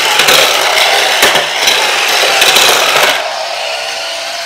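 Smart Steer Lightning McQueen toy car's small electric motor and plastic gears whirring loudly with clicking as it drives across tile, dropping off suddenly about three seconds in.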